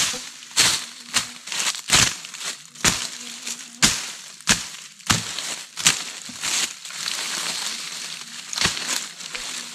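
Dry leaf litter, twigs and undergrowth crunching and snapping as the forest floor is cleared by hand and blade, in sharp irregular crunches about once a second, with a longer hissing rustle near the end. A faint low hum runs behind the first half.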